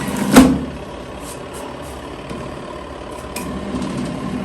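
Washing machine running with a steady low hum, its tub overloaded with clothes so that it turns only slowly and strains. A single sharp knock comes about half a second in.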